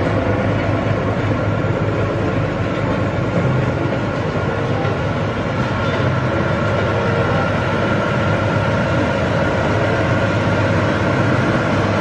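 Diesel engines of road rollers running steadily close by: a continuous low machine drone with no break.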